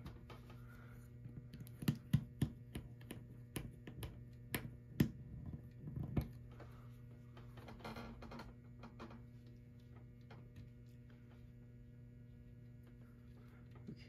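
Small sharp clicks and taps of wires and plastic parts being handled while wiring a fire alarm annunciator, most of them in the first half, with a brief rustle about eight seconds in, over a steady low hum.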